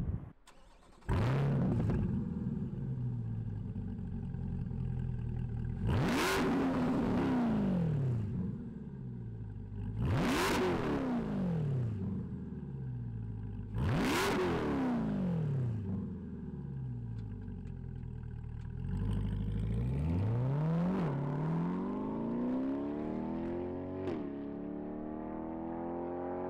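C8 Corvette's 6.2 L V8 through a Hooker BlackHeart 304 stainless cat-back straight-pipe exhaust with no mufflers. It fires up about a second in and idles, is revved three times standing still, each rev rising sharply and falling back, then accelerates hard away with two upshifts.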